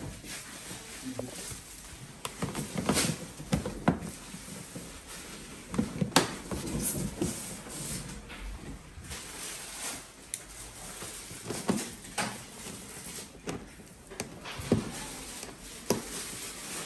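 Plastic body panels on a Yamaha TMAX 560 scooter being handled and pressed into place by hand: irregular clicks, knocks and rattles of hard plastic, a few sharper ones about three and six seconds in.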